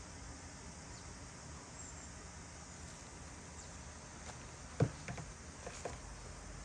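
Faint steady hiss with handling noise from bean-paste flower piping: one sharp knock about five seconds in, followed by a few soft clicks.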